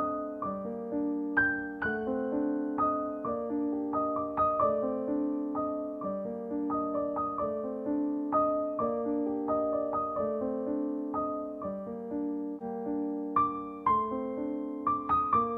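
Background music: a slow, gentle piano melody played over held chords.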